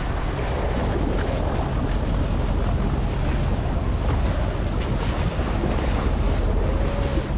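Sea water rushing and splashing against the side of a moving boat, with heavy wind rumble on the microphone.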